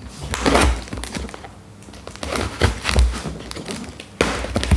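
Packing tape on a cardboard box being slit with a knife and pulled back off the flap: a run of short scratchy rips and crinkles, with a sharper, louder one about four seconds in.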